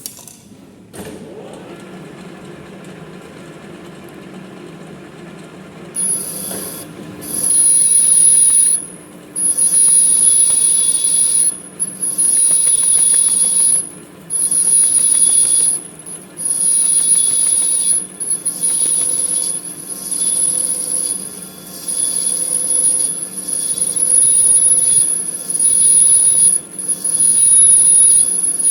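Manual metal lathe running with a steady motor hum. From about six seconds in, the cutting tool on the metal workpiece gives a loud, high-pitched squeal in stretches of one to two seconds, broken by short gaps.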